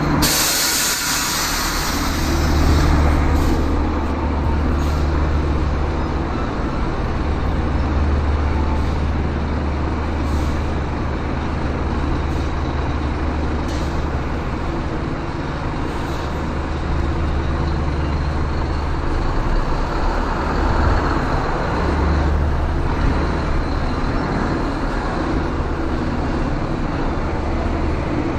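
Scania truck's diesel engine running steadily at low speed while the truck is manoeuvred. A burst of air hiss, as from the air brakes, comes right at the start and fades within a second or two.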